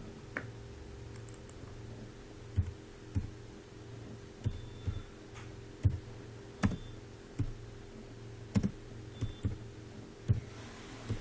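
Computer keyboard being typed on: single keystrokes at irregular spacing, roughly one a second, over a steady low hum.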